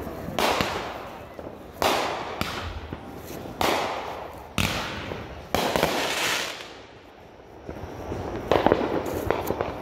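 Consumer aerial fireworks firing: five sharp bangs about a second apart, each trailing off in a fading hiss. After a brief lull comes a quick run of crackling pops.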